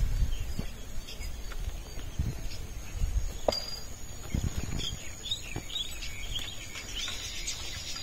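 Open-field ambience: small birds chirping, in a quick run of chirps from about halfway through, over a steady high insect drone, with a few scattered low thumps.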